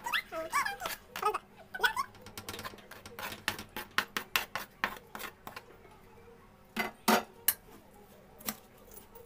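A stainless steel mixing bowl clattering as chopped herbs are scraped into it from a plastic cutting board: a quick run of sharp clicks and taps, then a few louder knocks of the board against the bowl about seven seconds in, and a spoon knocking in the bowl near the end.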